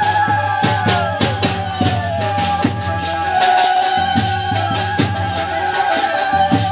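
Background music: a held, wavering melody over a steady bass with shaker and drum beats.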